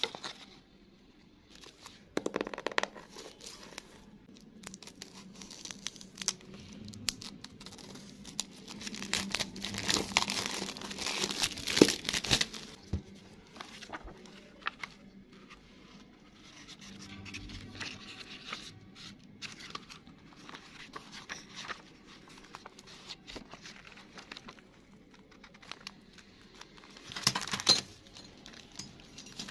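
Plastic packaging and sticker sheets being handled and unwrapped: crinkling and rustling in uneven bursts, loudest about a third of the way in and again briefly near the end.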